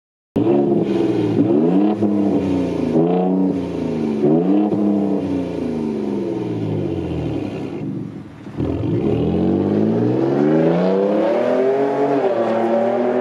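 Ford Raptor's twin-turbo EcoBoost V6 through a valved stainless cat-back exhaust with the valves open (RAGE mode), revving hard. The engine pitch climbs three times, each climb broken by a sudden drop. It then sinks slowly, dips briefly about eight seconds in, and climbs again as the truck drives off.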